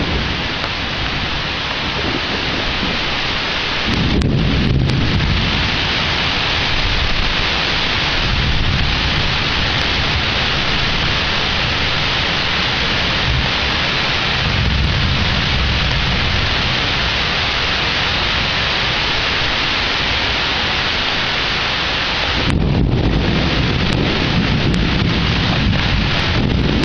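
Thunderstorm: heavy rain hissing steadily, with thunder rumbling through it. The deepest rolls come in about four seconds in and again near the end.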